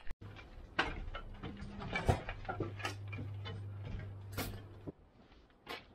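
Knocks, thumps and scrapes of a mattress and furniture being loaded up a metal ramp into the box of a moving truck, with footsteps on the ramp. A steady low hum runs underneath and stops a second before the end.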